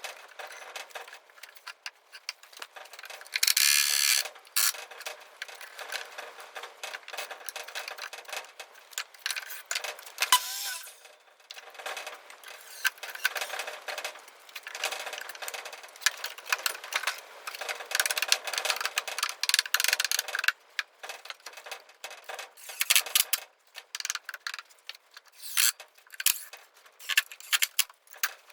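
Irregular clicking, clattering and rattling of hand work in a workshop, with several louder stretches of noise.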